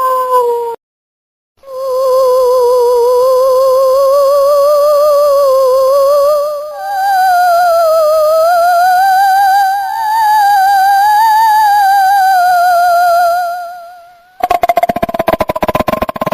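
Eerie ghost-wail ringtone sound: one long, high, wavering moan with fast vibrato that slowly rises and falls in pitch and steps up once about halfway through, then fades out. About fourteen seconds in, a harsh, rattling buzz takes over.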